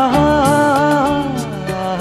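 Background music: an Indian film-style song with a melody gliding and bending in pitch over a steady beat.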